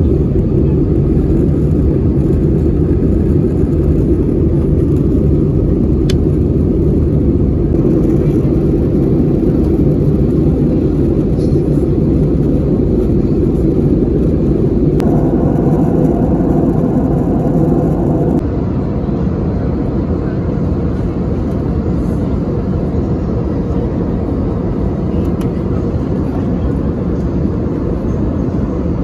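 Steady low cabin noise of an Airbus A320neo in flight, engine and airflow noise heard inside the cabin. It changes tone about halfway through and drops a little in level a few seconds later.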